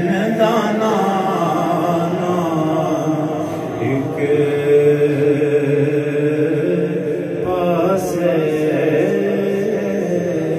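A man's voice chanting Islamic devotional recitation into a microphone, in long held melodic phrases that step from note to note.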